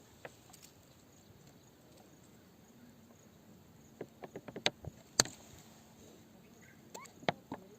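Sharp clicks and knocks of hard objects against each other: a quick run about four seconds in, the loudest a little after five seconds, and a few more near the end.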